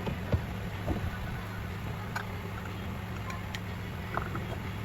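A steady low motor hum with a few light clicks and taps.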